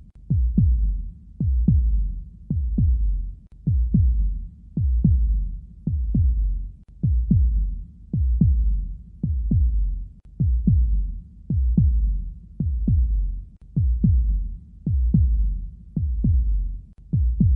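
Heartbeat sound effect: a slow, steady lub-dub of paired low thumps, a little slower than one beat a second.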